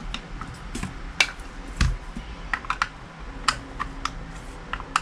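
Irregular small clicks and taps of plastic and metal parts being handled and fitted during reassembly of a KJ airsoft Beretta M9 pistol with a plastic frame.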